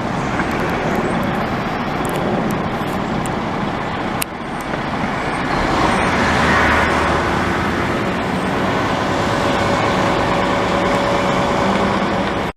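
Steady, loud road traffic noise from a busy highway, swelling slightly around the middle.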